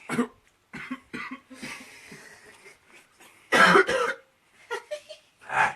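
A man coughing in a series of harsh bursts, the loudest fit about halfway through, the coughing of someone who has just inhaled smoke.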